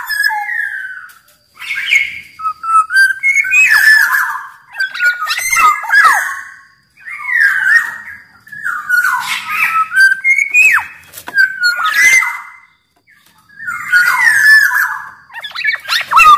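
Black-naped oriole singing in a fast run of short phrases, about one every two seconds. Each phrase mixes fluty whistles that slide up and down with rougher, harsher notes.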